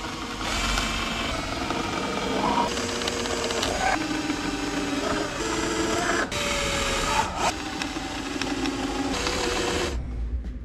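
Cordless drill boring pilot holes into softwood timber, its motor whine shifting in pitch as the trigger and the load change, with brief pauses about six and seven seconds in; it stops near the end.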